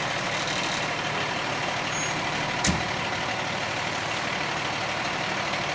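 Steady noise of a fire truck's engine running, with one sharp click about two and a half seconds in.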